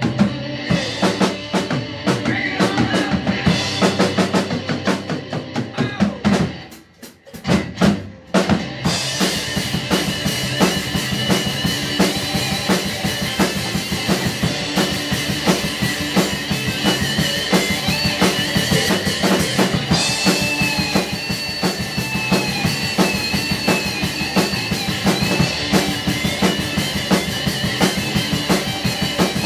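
Drum kit played along with a hard-rock recording, kick, snare and cymbals over the band. About seven seconds in the music drops out briefly, then the drums and band come back in full.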